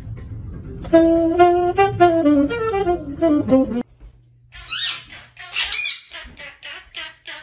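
A saxophone plays a short melodic phrase with notes stepping downward, cut off suddenly about four seconds in. Small parrots then call in a fast run of short, shrill squawks, about four a second.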